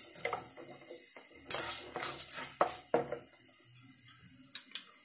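A spatula stirring spices in hot oil in a nonstick kadai, knocking and scraping against the pan several times. The sharpest clacks come about one and a half, two and a half and three seconds in.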